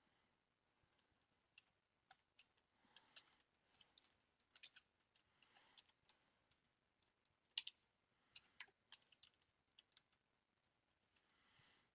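Faint typing on a computer keyboard: scattered, irregular key clicks, with one sharper click a little past halfway.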